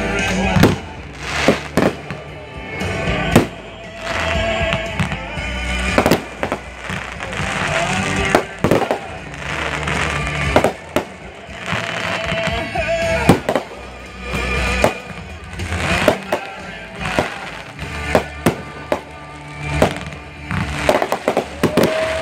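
Aerial fireworks shells bursting in an irregular series of sharp reports, roughly one every second or two, over music playing throughout.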